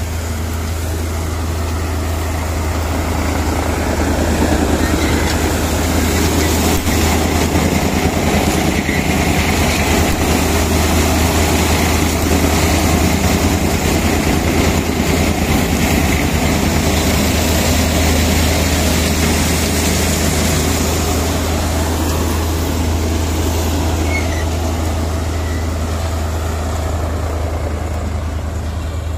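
Tractor-driven wheat thresher running steadily: the tractor engine's low drone under load with the threshing drum whirring and sheaves being fed in. It swells a little a few seconds in and eases slightly near the end.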